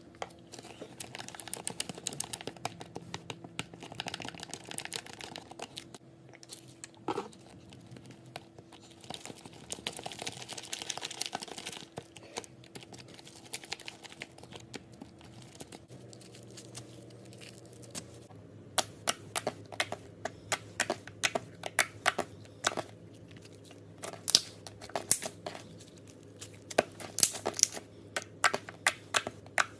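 Hands playing with slime: crackly, crinkling squishes in the first half, then a run of quick sharp clicks and pops from about two-thirds of the way through.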